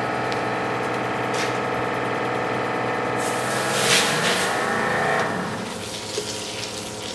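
Fire engine pump and Fast Foam 150 foam system running with a steady mechanical hum. A rushing hiss of water swells for about two seconds, then the noise drops away as the foam system shuts itself off, the system pressure having fallen below about 10 PSI.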